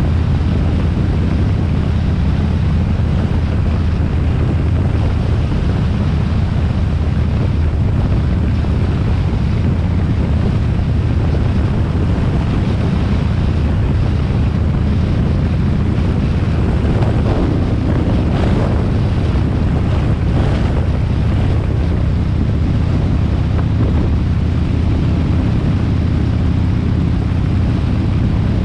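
Harley-Davidson XL1200R Sportster's air-cooled V-twin engine running steadily at cruising speed, with wind noise on the microphone.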